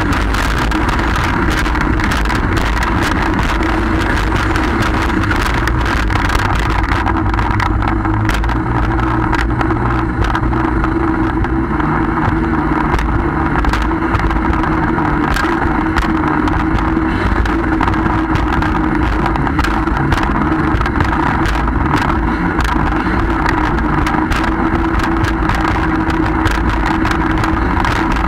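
Personal watercraft (jet ski) engine running at speed with a steady drone, over rushing water and frequent sharp splashes of spray striking the hull and camera, with low wind rumble. The engine pitch shifts a little partway through.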